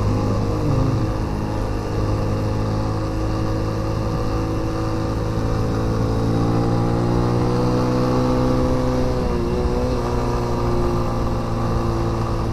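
Motorcycle engine running while riding, its pitch rising slowly for several seconds, then dipping briefly about three quarters of the way through, with wind rushing over the microphone.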